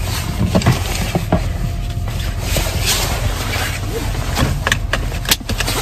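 Low steady rumble of a car being driven with its engine still cold, heard inside the cabin, with rustling and sharp knocks from a handheld phone being moved about.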